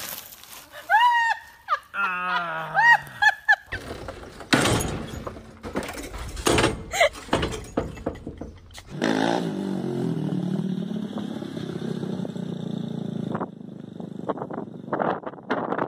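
A run of loud crashes and thuds as a red garden tractor rears over backwards off a wooden trailer and its rider falls. Then a small engine runs steadily for a few seconds and cuts off suddenly.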